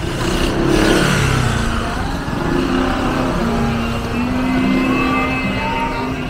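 A motor vehicle passes close by about a second in, its engine pitch falling as it goes by, followed by the steady hum of engines in street traffic.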